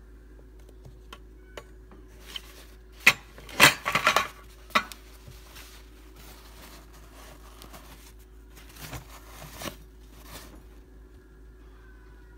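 Plastic clicks and clatter as a used Keurig K-cup pod is handled and set on the brewer's plastic drip tray: a few light clicks, then a burst of sharp knocks about three to five seconds in, and softer knocks around nine seconds.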